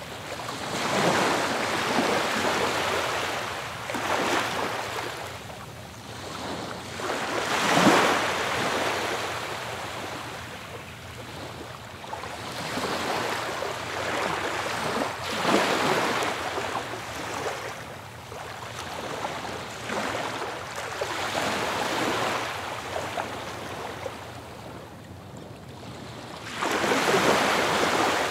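Ocean waves breaking and washing up on a beach. Each wave swells and fades over a few seconds, with the strongest surges about eight seconds in and near the end.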